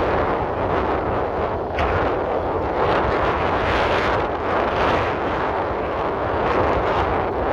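Boeing 787's twin turbofan engines on final approach: a steady rushing jet roar over a low rumble, swelling and easing irregularly.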